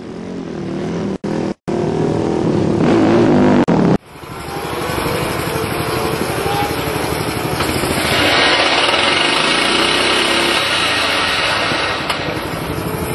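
426cc single-cylinder Minimono racing motorcycle engine running and revving. An abrupt cut about four seconds in gives way to the engine running on a paddock stand, with the revs held higher for a few seconds past the middle before dropping back.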